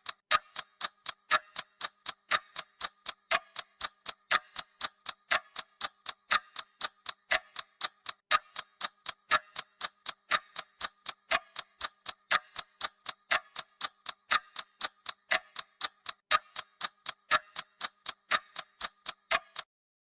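Clock-ticking sound effect of a countdown timer, steady at about four ticks a second with a louder tick once a second. It stops abruptly just before the end.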